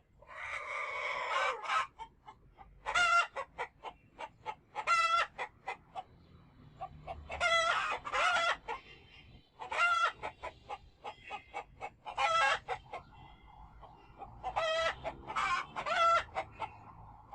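Chickens clucking, with a loud pitched call repeated about every two seconds and many short clucks in between.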